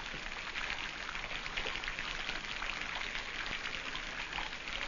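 A steady hiss with a fine crackle, like light rain.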